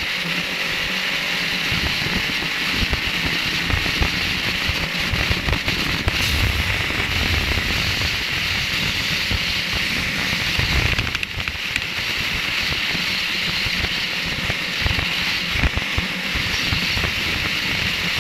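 Wind rushing and buffeting the microphone of a motorcycle cruising at highway speed, with the motorcycle's engine and tyres running steadily underneath.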